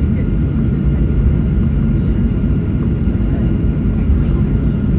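Boeing 737-800 cabin noise while taxiing, heard from a window seat over the wing: the CFM56-7B engines running at low taxi power under the rolling airliner, a steady low rumble with a steady hum.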